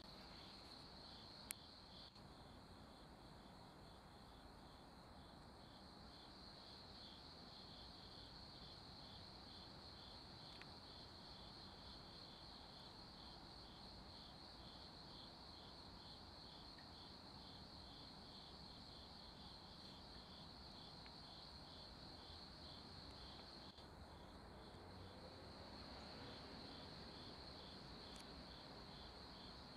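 Faint insects chirping: a steady high trill with a pulsing chirp just beneath it, about three pulses a second. A single sharp click about a second and a half in.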